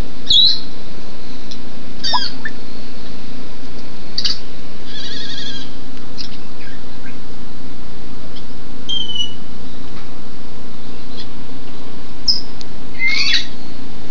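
Steady rain falling on the aviary and its leaves, with African grey parrots giving short whistles and squawks every few seconds, including a rapid trill about five seconds in and a falling whistle a few seconds later.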